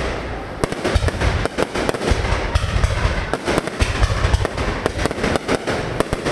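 Aerial fireworks going off in quick succession: a dense crackle of sharp reports with deep, rumbling booms from the larger shells.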